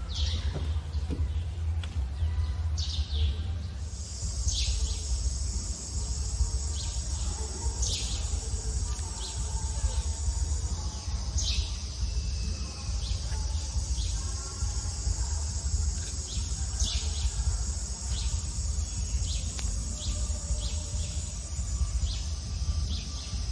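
Outdoor ambience. A steady, high-pitched insect drone starts about four seconds in, with short downward-sweeping bird chirps every few seconds, all over a continuous low rumble.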